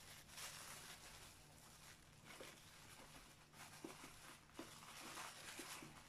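Faint rustling and crinkling of a thin plastic bag being gathered and closed by hand, with a few small ticks.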